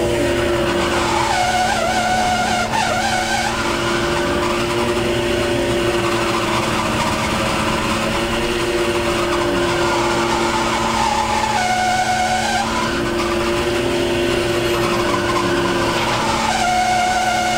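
Fishing boat's engine and deck hydraulics running steadily with a constant hum, while a higher whine, likely from the hydraulic line hauler working the trap line, swells and fades three times: near the start, about two-thirds through, and near the end.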